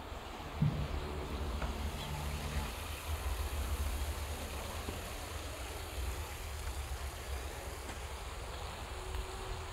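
Wind buffeting the phone's microphone: a low, uneven rumble throughout. A short low tone comes about half a second in, and a faint steady hum lasts for the first few seconds.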